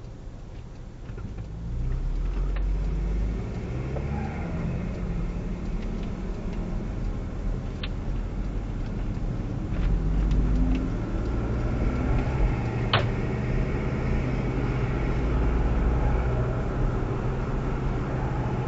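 Car engine and road noise heard from inside the cabin through the mirror dashcam's built-in microphone. The engine picks up about two seconds in as the car pulls away from a stop, its pitch rising and falling as it accelerates and drives on.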